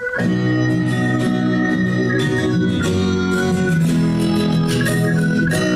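A song's instrumental intro with held organ-like chords and percussion, starting abruptly, played back through a pair of old Pioneer wooden bookshelf speakers whose broken cones have been patched with kitchen paper. This is a sound test of the repaired speakers, which lean toward the mid and high tones.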